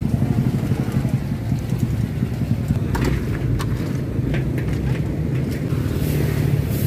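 Steady rumble of road traffic, with a brief higher hiss near the end as a vehicle passes close.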